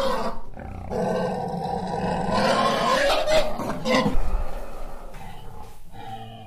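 An animal's calls, fading over the last two seconds.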